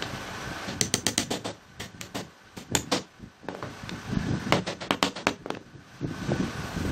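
Hammer driving small nails into a pine board, in several quick runs of sharp taps.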